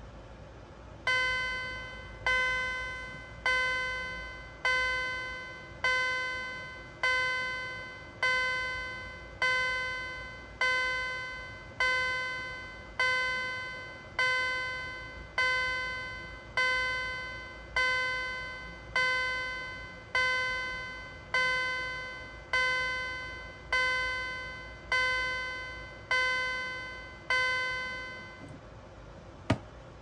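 Wheelock CH-series fire alarm chime striking in marchtime: an even run of ringing strokes, one about every 1.2 seconds, each fading away before the next. The strokes stop near the end, followed by a single sharp click.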